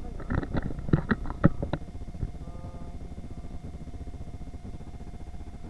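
Steady supermarket hum with one constant tone, broken in the first two seconds by a quick run of sharp clicks and knocks.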